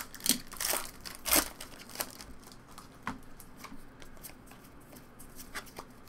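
Foil Pokémon booster-pack wrapper crinkling and trading cards being handled, with a few short crinkly bursts in the first second and a half, then lighter scattered clicks and rustles.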